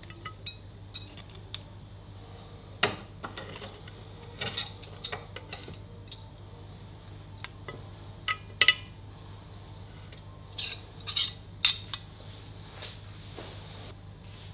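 Metal fork and knife clinking and scraping against a ceramic dinner plate as slices of roast meat are laid on it: a dozen or so scattered sharp clinks, the loudest in the second half.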